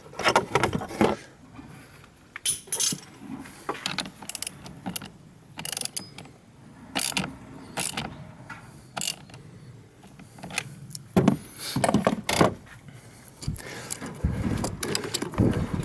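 Hand ratchet wrench clicking in irregular spurts, with clanks of metal tool on metal, as a car battery's positive terminal clamp is tightened.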